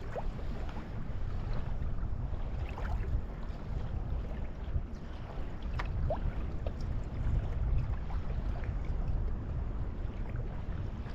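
Wind buffeting the microphone on a kayak, a steady low rumble, with scattered faint clicks.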